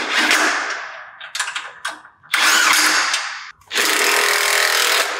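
Cordless power tool running a socket onto a motor mount's through bolt in several bursts: a few short stutters, then two longer runs of about a second each.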